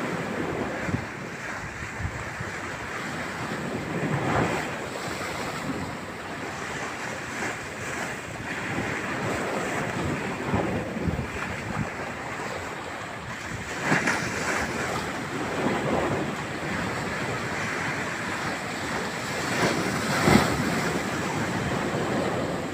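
High surf in a strong wind, with wind buffeting the microphone; several louder surges stand out, the strongest near the end.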